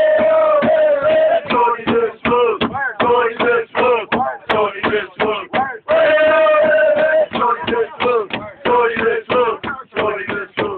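Men chanting a song loudly, in quick rhythmic syllables broken by long held notes near the start and again about six seconds in.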